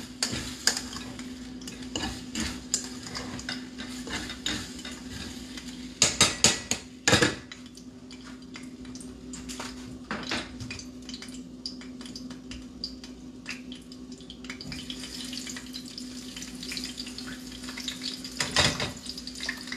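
Kitchen dishes and utensils clattering, with a few loud clanks about six to seven seconds in, over a steady low hum. In the last few seconds hot oil starts sizzling as coconut-breaded fish is laid into the frying pan.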